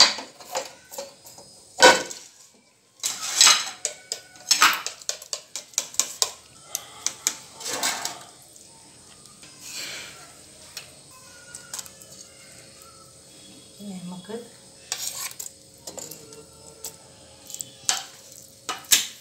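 Kitchen utensils clinking and knocking: a non-stick pan, bowls and a spoon handled while the pan is oiled and pastry sheets are dipped in beaten egg. The knocks come irregularly, the loudest about two seconds in.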